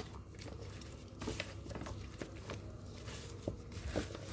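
A hand in a plastic glove mixing raw seasoned chicken pieces and chopped vegetables in a metal roasting tray: soft squelching and plastic rustling, with a few light clicks scattered through.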